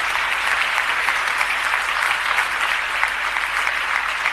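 A large seated audience applauding: dense, steady clapping from many hands.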